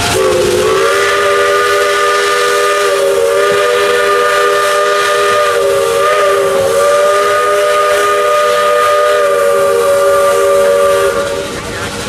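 Steam locomotive whistle sounding one long chord of several notes, held for about eleven seconds over a hiss of steam. It slides up into pitch at the start, wavers slightly midway, and cuts off near the end.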